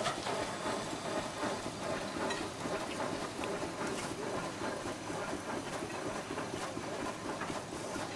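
Horizontal stationary steam engine with a large spoked flywheel running, its exhaust steam venting from the stack in a steady rushing noise with a few faint clicks.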